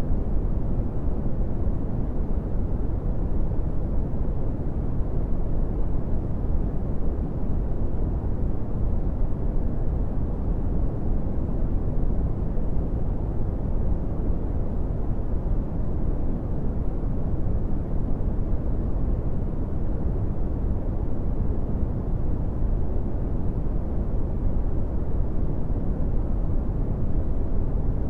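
Brown noise: a steady, deep rumbling hiss with most of its energy in the low end and little above the midrange, unchanging throughout.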